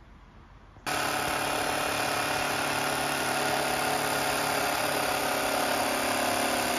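A battery-powered power tool starts suddenly about a second in and runs steadily and loudly, a continuous machine whine with several steady tones.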